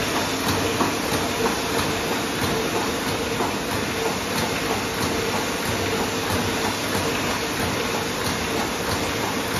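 Automatic sheet-fed paper embossing machine running steadily as it feeds cards through its belts and rollers: a constant mechanical hum and hiss with a regular light clicking.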